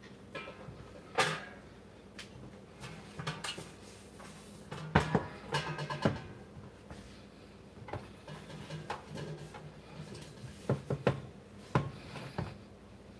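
Scattered knocks, clacks and rattles of kitchen items being handled by hand, the sharpest about a second in and about five seconds in, over a steady low hum.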